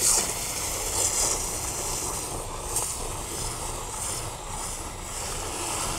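Garden hose spray nozzle on its jet setting blasting water into a bucket of water and wheel-cleaner gel, a steady rushing hiss that comes on abruptly as it churns the mix into foam.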